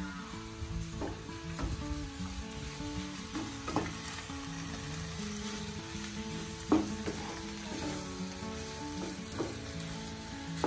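Mushrooms and sliced meat sizzling in a non-stick frying pan, stirred with a wooden spatula that scrapes and knocks against the pan now and then, one knock louder about seven seconds in. Soft background music with a stepping melody plays underneath.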